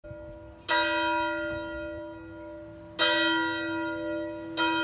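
A church bell struck three times at uneven intervals, each stroke ringing on and slowly fading under the next.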